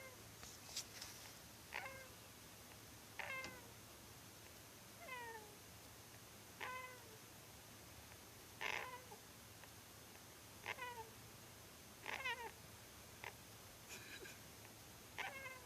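Sleeping pet hamster giving short, squeaky breaths about every one and a half to two seconds, each squeak dipping slightly in pitch; sounds its owners couldn't tell apart as snoring or dreaming.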